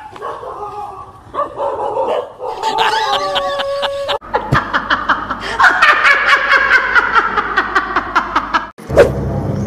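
A dog's cries for the first few seconds, then a woman laughing loudly in a quick, even ha-ha-ha, about five bursts a second, from about four seconds in until shortly before the end.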